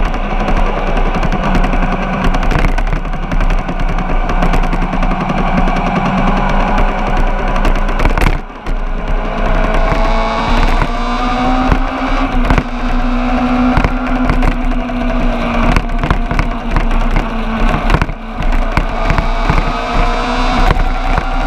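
A vehicle engine running hard at high revs, its pitch rising and falling, with a dense rapid rattle throughout and a brief drop in level about eight seconds in.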